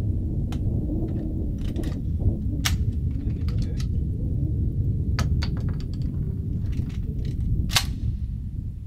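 Shotgun being handled and reloaded: a series of sharp metallic clicks and clacks as the action is worked and shells are handled, over a steady low rumble.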